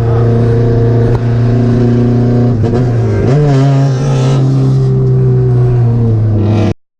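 Toyota Levin BZR AE111's 20-valve 4A-GE four-cylinder engine running on track at a steady pitch. About three seconds in, the note dips briefly and then climbs back slightly higher. It cuts off suddenly near the end.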